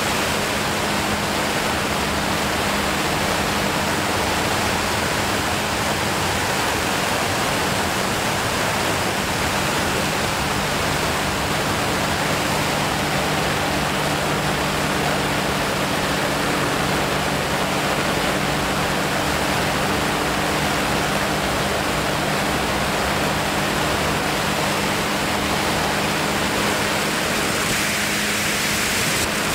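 Steady rush of airflow over the camera's microphone in flight, an even unbroken noise with a faint low hum underneath.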